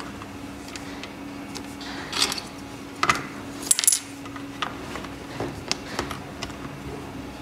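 Small hard objects being handled, a scattering of light clicks and taps with a few sharper clinks, the last of them, a little past the middle, ringing briefly and metallically.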